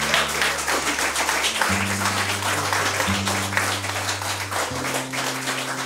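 Audience applauding, many hands clapping, over low sustained music chords that change roughly every second and a half.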